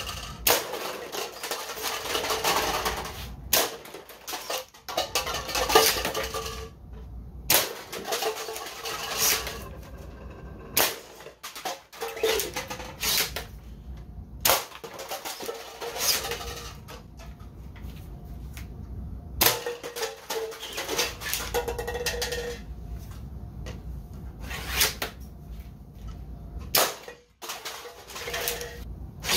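Spring-powered bolt-action M0053-1 Mega-dart sniper blaster fired shot after shot, about every two or three seconds. Each sharp pop is followed by plastic cups clattering and tumbling off a table.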